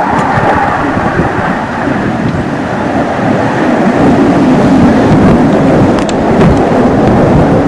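BAE Hawk jet trainer's single Adour turbofan engine at high power during a fast display pass: a loud, rough rumbling jet noise that grows louder about halfway through.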